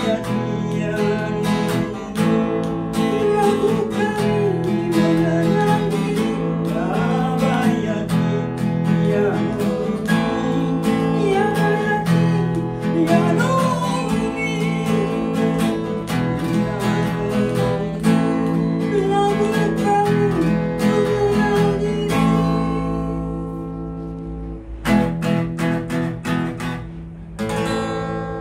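A voice singing over a strummed acoustic guitar. About 22 seconds in the singing stops, and the guitar plays on alone with a few last strums that die away.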